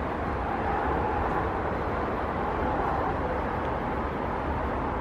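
Steady rumble of distant vehicle noise, even throughout, with no single passing event.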